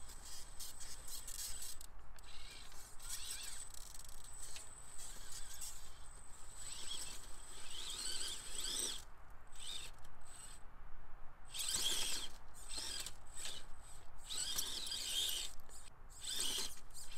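The electric drive motor and geartrain of a 1/18-scale Axial Capra UTB18 RC rock crawler whining in stop-start bursts as it climbs over rocks, the pitch rising and falling with the throttle.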